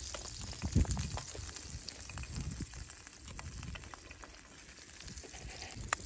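An egg frying in hot oil in a small pan over a campfire, with fine crackling and sizzling. A low knock comes about a second in as the egg is cracked.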